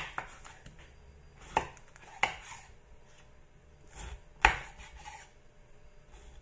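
Chef's knife cutting through a peeled pineapple and knocking on a wooden cutting board: a few sharp, irregularly spaced knocks, the loudest about four and a half seconds in.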